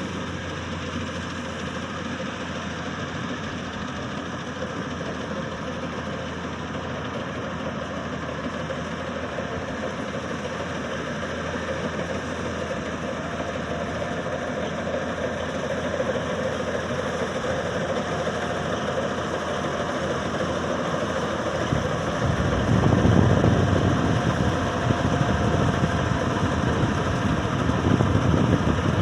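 Combine harvester engine running steadily, slowly growing louder, with a heavier low rumble setting in about three-quarters of the way through.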